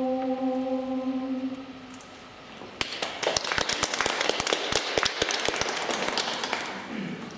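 Women's a cappella choir holding a final chord that dies away about two seconds in. After a short pause, audience applause for about four seconds.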